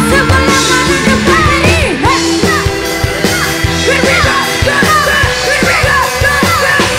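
Live dangdut koplo band playing loudly, with an electric guitar lead line bending up and down over a fast drum beat.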